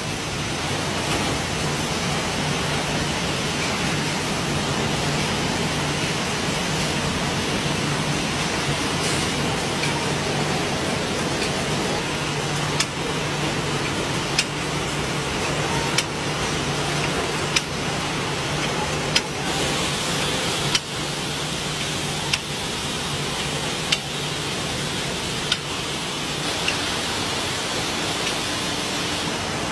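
Steady machinery noise with a low hum in a matchbox-making workshop. From about halfway on, a sharp click comes roughly every second and a half.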